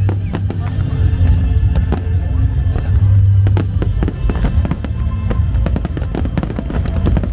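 Fireworks display going off: a dense run of sharp bangs and crackles from bursting aerial shells, with music playing underneath.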